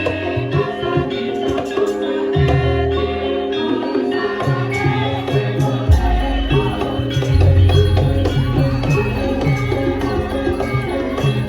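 Javanese gamelan music for a lengger dance: ringing metal percussion playing steady notes over hand-drum strokes, with a deep low note coming in about six seconds in.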